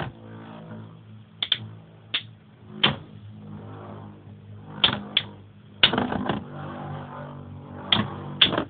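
Two Metal Fight Beyblade spinning tops, Tornado L-Drago and Tornado Leone, whirring steadily in the stadium and clashing in irregular sharp clacks, with a quick run of hits about six seconds in.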